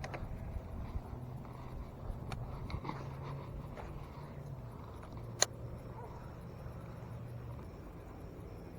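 A steady low engine-like hum, such as distant vehicle traffic, under outdoor ambience. Light clicks are scattered through it, and one sharp click about five and a half seconds in is the loudest sound.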